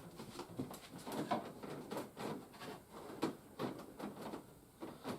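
A string of soft, irregular knocks, clicks and rustles from objects being handled, as someone fumbles to switch on display lights.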